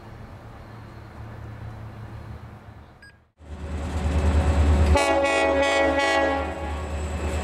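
Low steady rumble of idling diesel locomotives, cut off abruptly after about three seconds. A louder train follows, its heavy engine rumble joined about five seconds in by a multi-tone locomotive horn chord sounding for a little over a second in short blasts.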